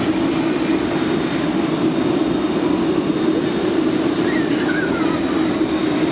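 Twin-engine jet airliner taxiing, its engines making a steady, continuous rumble with a low hum.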